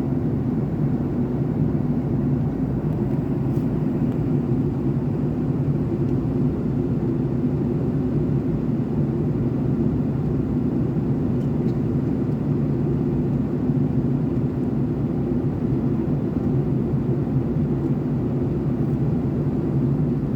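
Steady cabin drone of a Boeing 757-200 in cruise: the Rolls-Royce RB211 engines and rushing airflow heard from inside the cabin, a constant low hum with no changes.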